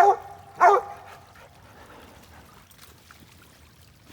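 Mountain Cur tree-barking at a treed squirrel: two loud, ringing barks in the first second, then a lull. The barking marks that the dog has the squirrel treed in a tulip poplar.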